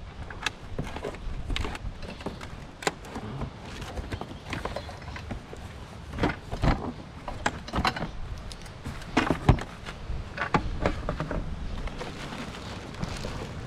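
Irregular knocks and clatter of hard objects being picked up and moved about, like items in a pile of discarded household junk, over a steady low rumble. The loudest knocks come about six and nine seconds in.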